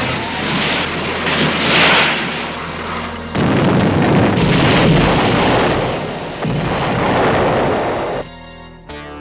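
A car crashing and sliding through dirt, then a loud explosion that starts suddenly about three and a half seconds in and carries on as a deep, sustained blast of fire for several seconds. Music with a guitar comes in near the end.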